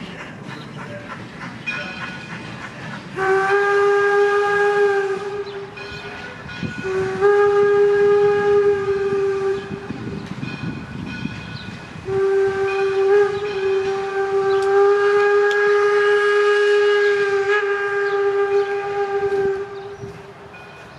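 Steam whistle of Detroit & Lima Northern No. 7, an 1897 Baldwin 4-4-0 steam locomotive, sounding three long blasts, the last held for about seven seconds, over the low rumble of the moving train.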